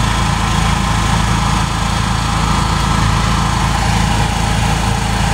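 Honda EU7000is inverter generator's fuel-injected engine running steadily on its first start-up break-in run.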